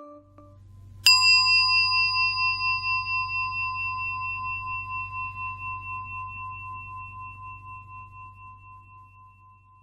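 A bell struck once about a second in, its clear ring wavering as it slowly dies away over about nine seconds, over a faint low hum.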